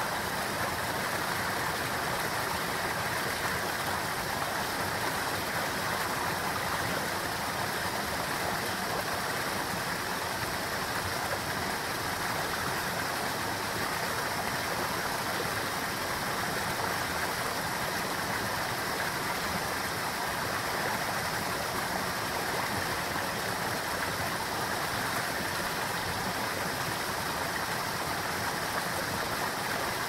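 Small creek waterfall pouring into a rock pool: a steady rush of falling water.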